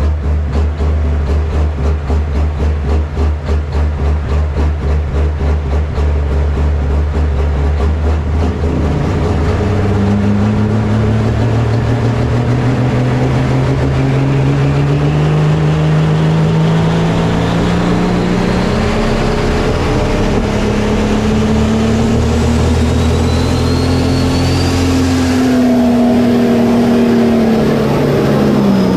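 Turbocharged diesel engine of a 4.1 Limited Pro Stock pulling tractor, heard from the seat: idling with a pulsing beat, then from about nine seconds in the revs climb slowly and steadily. A brief high whistle rises near the peak before the revs ease off near the end.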